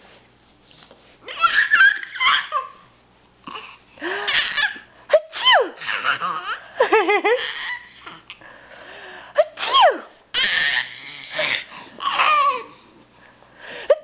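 Adults sneezing loudly, again and again, and a nine-month-old baby giggling and laughing in response. There are about six loud bursts, starting about a second in, with short quiet gaps between them.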